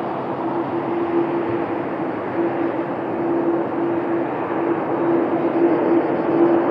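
Distant jet airliner engines at takeoff thrust: a steady roar with a held hum-like tone running through it, swelling a little in the last couple of seconds.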